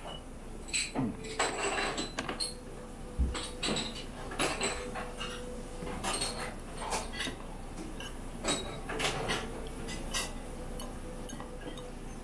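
Dishes and cutlery clinking and clattering at irregular intervals in a busy diner, over a faint steady hum.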